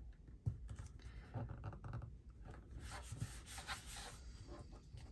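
Faint paper handling: rustling and rubbing of paper pieces on the work table, with a light tap about half a second in.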